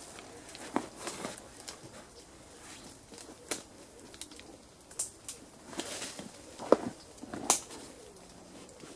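Twigs snapping and branches and leaves rustling as a man climbs a leaning wind-thrown tree, with sharp cracks scattered through and the loudest two about two-thirds of the way in.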